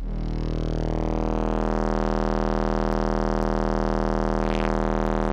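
A 40 Hz test tone played through an AudioPipe TXX-BDC4-12 12-inch subwoofer inside a van's cabin, measuring about 132 dB on the meter. A steady, deep, buzzy drone that swells over the first couple of seconds, then holds.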